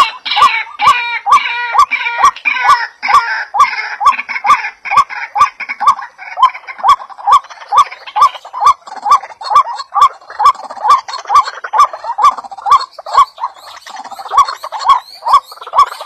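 White-breasted waterhen calling: a long, even series of short, clipped notes, nearly three a second, with a harsher, higher chattering over them for the first few seconds.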